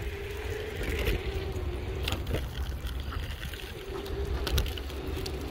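Wheels of a dog-pulled board rolling over pavement: a steady low rumble with a faint even hum, and a few sharp clicks about two seconds in and again near the end.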